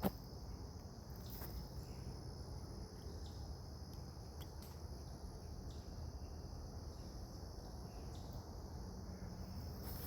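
Forest insect chorus, a steady high-pitched trilling that holds unbroken, over a low rumble, with a short sharp tap right at the start and a few faint clicks.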